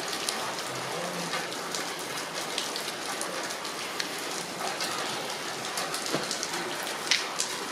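Steady rain falling hard, with many sharp drop hits scattered through it and one louder hit near the end.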